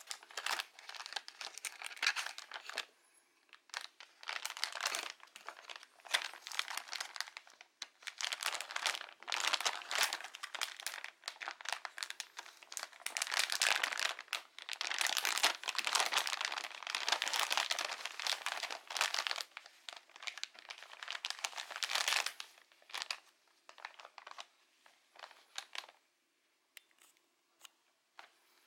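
Clear plastic packaging bag crinkling and rustling in irregular bursts as hands open it and pull out a cloth face mask, dying down near the end.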